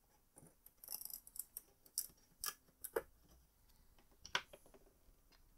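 Small screwdriver prying a DIP memory chip out of its socket on an AST Rampage 286 ISA memory card: a series of sharp clicks and short scrapes of metal on the chip and socket, between about one and four and a half seconds in.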